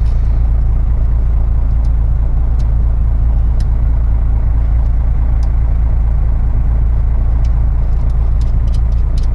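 Volvo B10BLE bus's horizontal six-cylinder diesel engine idling steadily, a constant low rumble. Scattered light clicks from handling wiring connectors, more of them near the end.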